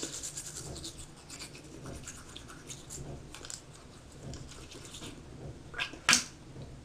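Teeth being brushed with a disposable pre-pasted toothbrush: faint, irregular scratchy brushing strokes. A sharp, loud noise comes near the end.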